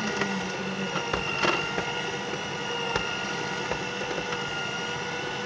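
Electric hand mixer running steadily, its beaters whirring in a bowl with a constant motor whine, and a few sharp clicks of the beaters knocking against the bowl.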